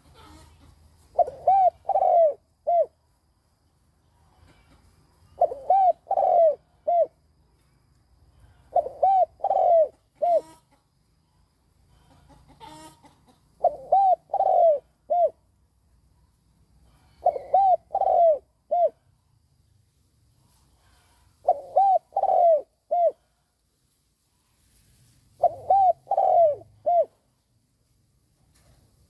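Spotted dove cooing. It repeats its phrase of about four coos seven times, roughly every four seconds. This is the call of a decoy dove (cu mồi) used to provoke wild doves into answering.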